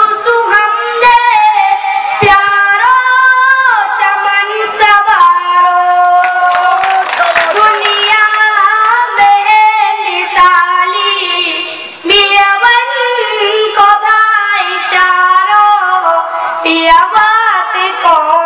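A boy singing a nazm, an Urdu poem, in a melodic chant into a microphone, his voice sliding and holding notes phrase by phrase. About seven seconds in, a short patch of audience clapping rises over the singing.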